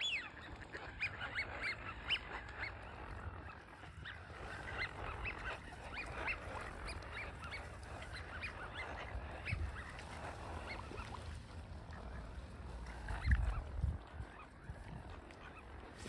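Mallard ducks calling: a chatter of many short, overlapping calls. There is one falling call right at the start and a brief low rumble near the end.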